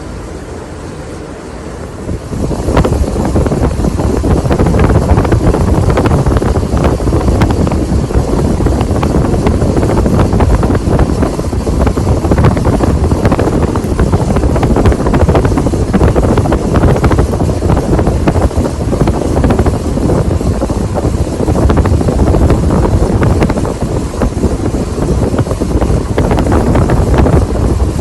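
Casablanca Halogen Star ceiling fan running with four blades, giving a loud, steady rush of moving air that is heaviest in the low end. It grows suddenly louder about two and a half seconds in and then holds steady.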